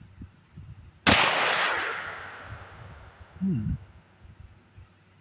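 A single shot from a CZ52 pistol firing 7.62×25 mm Tokarev hollow-point ammunition about a second in, its sharp report echoing away over about a second and a half.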